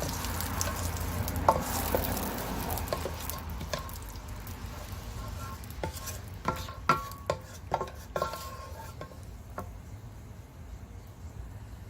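Cinnamon sticks and bay leaves sizzling in hot oil in an electric pan, the sizzle dying down over the first few seconds. A utensil knocks and scrapes against the pan several times, with a short metallic ring, about six to eight seconds in.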